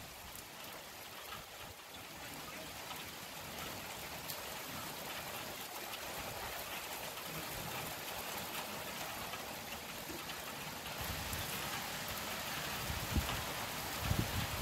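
Steady rain falling, an even hiss, with some low rumbling and a few low thumps near the end.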